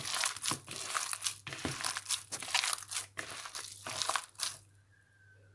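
Bare hands squeezing and kneading a mash of boiled potatoes and crushed peas in a bowl: a rapid, irregular run of crunching, squelching noises that stops about four and a half seconds in.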